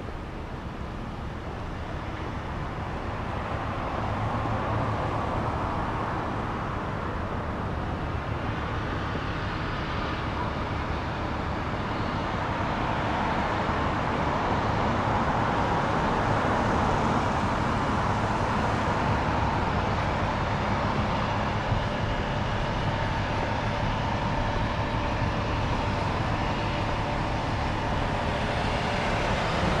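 Steady low rumble of a heavy vehicle or engine, slowly growing louder through about the first half and then holding steady.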